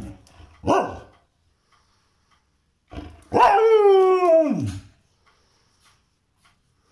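A dog howling to be taken out for a walk. A short yelp comes just under a second in, then one long howl of about two seconds starts about three seconds in and drops in pitch at its end.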